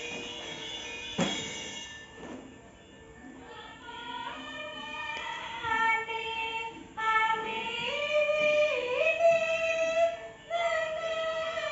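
Javanese gamelan music with a sung vocal line: after a single sharp knock about a second in, a voice enters about four seconds in, holding long notes that step and slide between pitches.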